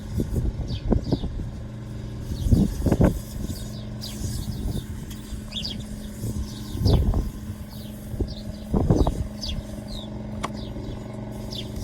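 A steady low engine-like hum, with several dull bumps and short high bird chirps over it.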